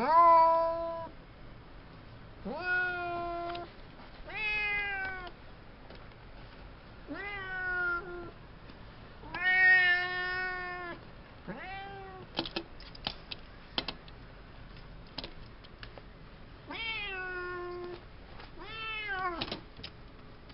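Domestic cat meowing over and over, about eight meows a second or two apart. A few sharp clicks sound during a quiet stretch in the middle.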